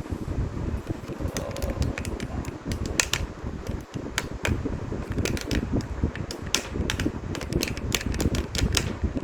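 Irregular light clicks and taps of 3D printer parts being handled and fitted together during assembly, over a steady low rumble.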